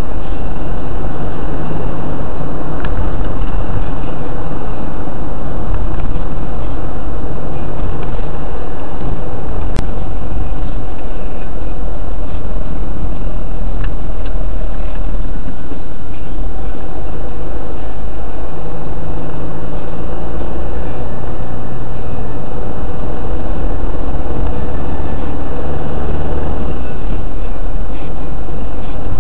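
Car engine and road noise inside a moving car, loud and steady, the low engine tones shifting now and then as the car's speed changes. A single sharp click about ten seconds in.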